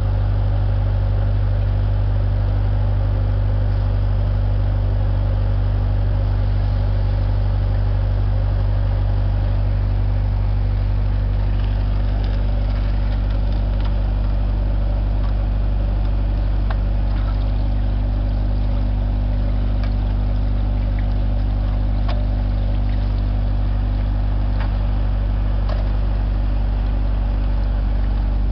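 Core drilling rig's engine running at a steady, constant speed, a loud, even hum. A few faint metallic clicks come through over the middle of it.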